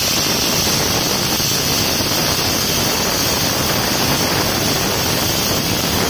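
JKARC Cut 80 IGBT inverter air plasma cutter cutting through steel plate: a steady, loud hiss of the plasma arc and compressed air blowing through the cut.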